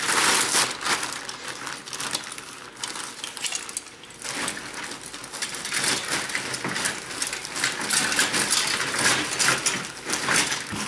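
Plastic bags being handled, rustling and crinkling in irregular bursts with small clinks and knocks, quieter for a moment in the middle.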